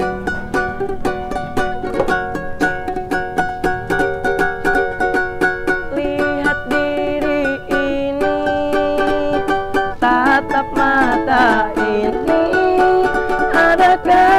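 A ukulele-like small string instrument strummed quickly in a steady rhythm, with a young man's singing voice coming in about ten seconds in: a street busker's performance.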